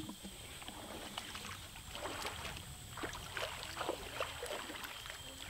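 Faint lakeside ambience: a low wind rumble with scattered small knocks and light water splashes, with one sharp click right at the start.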